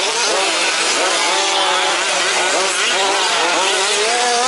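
Several 1/5-scale petrol RC trucks' small two-stroke engines racing together, each revving up and down so that their overlapping whines keep rising and falling.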